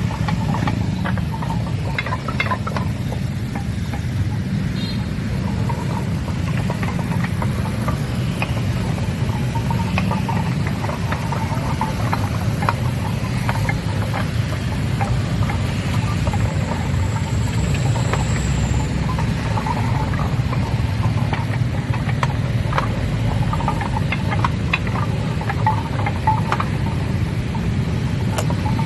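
Loose concrete paving blocks knocking against one another as vehicles run over them, giving scattered clinks and short ringing tones like a gamelan, over a steady low engine rumble.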